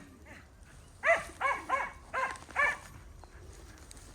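A dog barking: five short barks in quick succession, starting about a second in.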